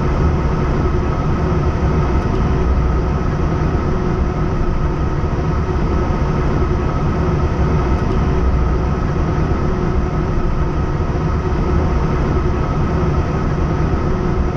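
Airbus A320 cockpit noise as the airliner rolls along the ground after landing: a steady low rumble with a steady whine running through it.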